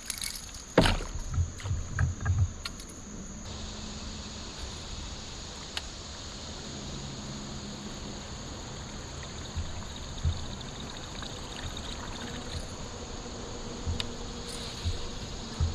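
A handful of hollow knocks against a plastic fishing kayak about a second in, then a steady high insect buzz over faint water noise, with a few soft taps near the end.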